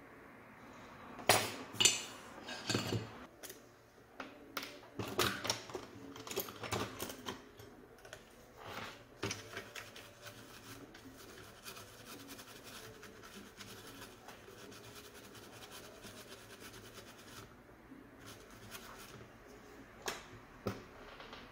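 Handling noises over a motherboard on a workbench: a run of irregular clicks, taps and scraping in the first half as tools are put down and a squeeze bottle with a nozzle tip is worked over the board, then a faint steady background with two sharp clicks near the end.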